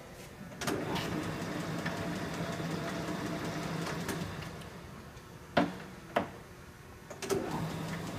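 LeBlond Regal engine lathe started with a clunk of its controls about half a second in and running steadily with a low hum for a few seconds, then winding down. Two sharp clunks of levers follow around five and six seconds in, and another clunk near the end as it starts running again at another spindle speed.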